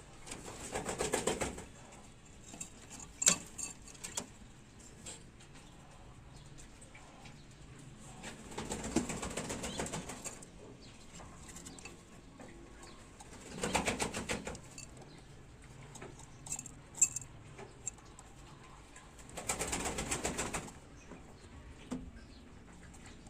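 Pigeon wings fluttering in four bursts of a second or two each, separated by quiet stretches, with a few sharp clicks in between.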